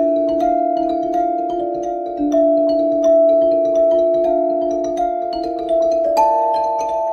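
Background music played on a mallet instrument: struck notes that ring on in slowly changing chords, a new note or chord about every second.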